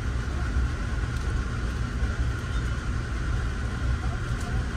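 Steady low rumble of a running vehicle, with a steady hum above it.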